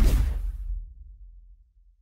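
Logo-intro sound effect: a deep boom hit whose noisy crash fades within about half a second, leaving a low rumble that dies away over about a second and a half.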